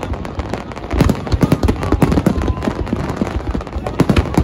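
Fireworks display going off: a rapid, continuous barrage of sharp overlapping bangs and crackles, many a second.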